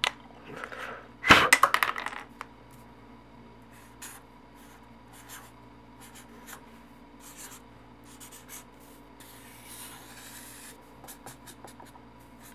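A marker writing on a sheet of paper: short scratchy strokes, with one longer continuous stroke about nine seconds in. It begins with a loud clatter about a second in.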